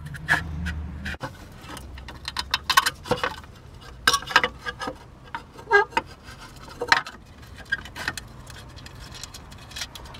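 Irregular clicks and light knocks of hard plastic parts being handled as the diffuser of a Jandy variable-speed pool pump is fitted back over the impeller, with a low hum during the first second.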